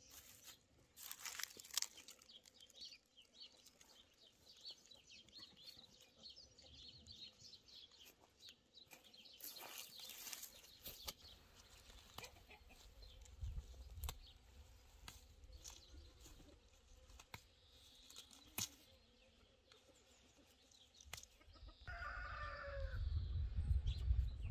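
Faint farmyard chickens clucking, with small birds chirping, and a rooster crowing once near the end, a call that falls in pitch.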